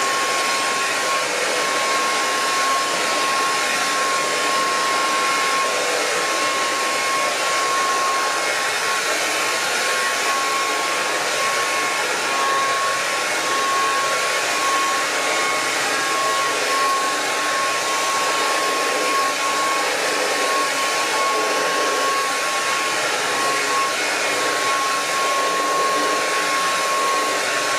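Handheld hair dryer running steadily while blow-drying hair: an even rush of air with a steady high whine from the motor.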